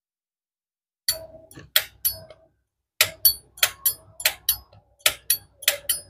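Zippo lighter's hinged lid flipped open and snapped shut over and over: about a dozen sharp metallic clicks with a short ringing ping, in loose groups. The lid sound is called normal and standard, the sign of a sound hinge and cam.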